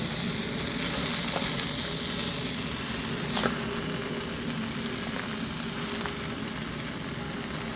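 Tomahawk steak and vegetables sizzling on the hot grate of a Weber kettle charcoal grill: a steady hiss with a few faint pops, over a low steady hum.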